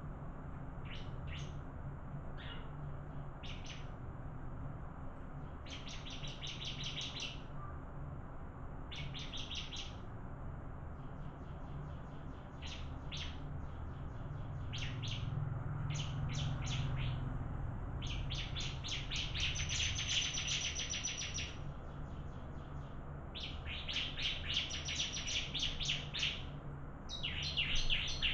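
Bar-winged prinia (ciblek) singing: bursts of rapid, high repeated chirps, some about a second long and a few running about three seconds, over a steady low hum.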